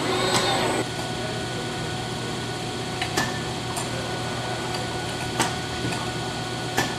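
Robotic assembly cell running: a steady low machine hum, with four sharp clicks over the last four seconds.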